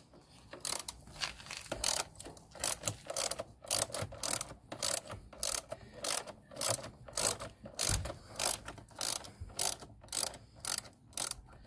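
Small hand ratchet clicking as it turns a T30 Torx bit on a screw in the Ryker's plastic side cover, a steady run of short clicks at about two to three a second.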